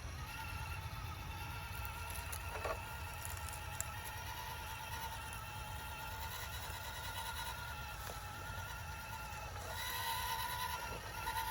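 Electric motor of an RC rock crawler running with a steady whine, steps up slightly in pitch about ten seconds in, with a low rumble and a couple of small clicks.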